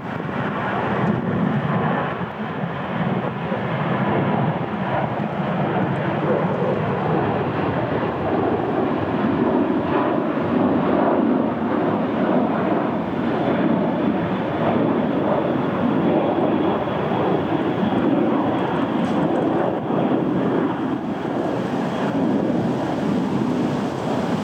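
Jet airliner engine noise, a loud steady rumble with a faint high whine coming in about halfway through.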